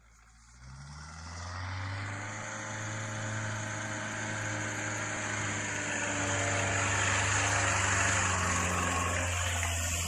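ARO 4x4's engine pulling under load as it climbs a muddy track toward and past, at a fairly steady pitch. It grows louder over the first two seconds and is loudest about eight seconds in.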